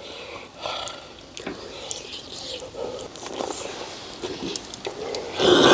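Eating sounds at a table: scattered small clicks of spoons and chopsticks against dishes, with soft chewing and mumbling, then a loud breathy huff about five seconds in as someone breathes out around a mouthful of food that is too hot.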